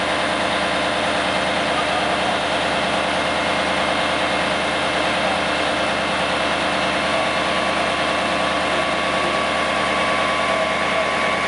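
Fire department aerial ladder truck's engine running steadily, powering the ladder, with a constant hum and a faint steady whine.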